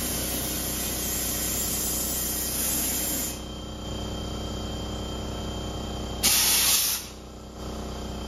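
Compressed air hissing from a pneumatic tire changer: a steady hiss for about three seconds, then a short, loud blast of air a little over six seconds in.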